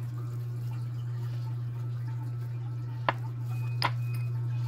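A steady low hum, with two sharp clicks a little over three seconds in, under a second apart.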